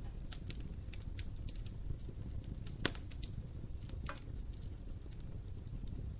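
Wood fire burning in a fireplace: a low steady rumble of flames with irregular sharp crackles and pops from the burning logs, the loudest pop about three seconds in.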